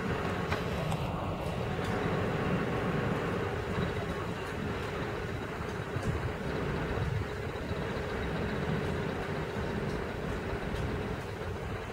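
Passenger coaches of a locomotive-hauled train rolling away along the track as the train departs, a steady rumble of wheels on rails.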